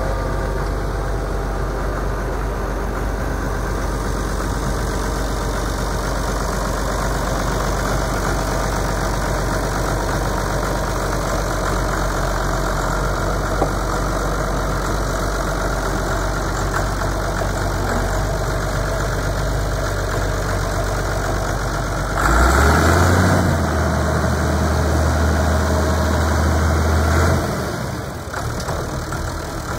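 1979 White 2-105 tractor's diesel engine idling steadily. About three-quarters of the way through it is revved up sharply and held for about five seconds, then drops back down.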